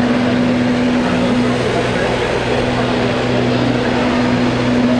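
Steady low hum and rushing noise from a diesel train's engine running at the station, with voices in the background.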